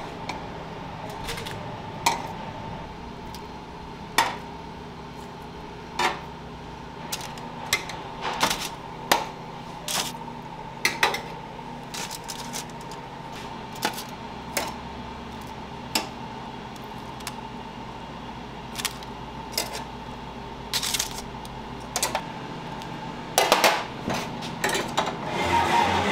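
Kitchen clatter: scattered sharp clinks and knocks of stainless trays and wire racks being handled, over a steady hum, with a quick run of knocks near the end.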